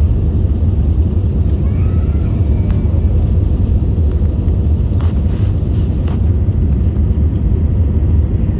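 Cabin noise inside an Airbus A320 airliner: a steady low rumble of engines and airflow.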